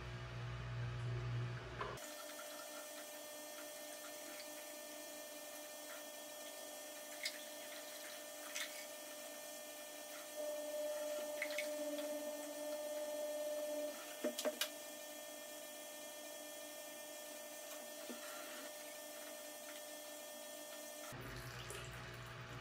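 Hydraulic oil being poured from a jug through a funnel and hose into the skid steer's system: a faint, steady trickle of liquid. A steady tone rises above it for a few seconds in the middle, and a few light clicks come near the end of it.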